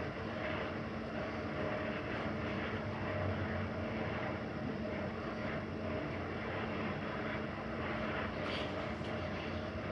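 Mitsubishi Accel-series rope-traction passenger elevator travelling between floors, heard from inside the car: a steady running hum with a faint steady tone in it.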